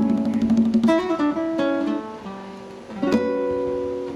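Acoustic guitar strumming the closing chords of a song, with a final strum about three seconds in that is left to ring out and fade.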